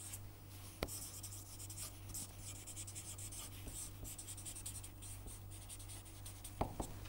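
Felt-tip marker writing on paper: short, irregular scratching strokes as words are written by hand, with a few faint clicks.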